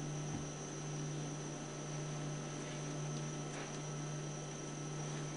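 Steady low electrical hum with hiss, a recording's room tone, with a few faint light clicks of small parts being handled.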